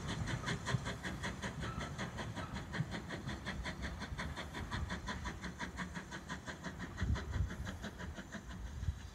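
BR Standard Class 2 2-6-0 steam locomotive 78022 pulling away, its exhaust chuffing in quick regular beats of about five a second that slowly fade as the train draws off, over a low rumble of the carriages on the rails.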